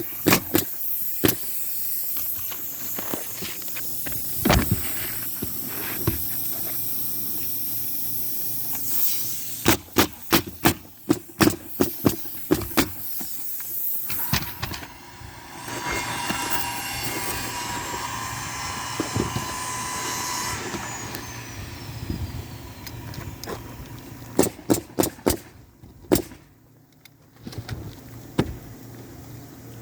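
Hammer driving roofing nails: quick runs of sharp strikes, several blows a run, with pauses between the runs and a stretch of steady scraping noise in the middle.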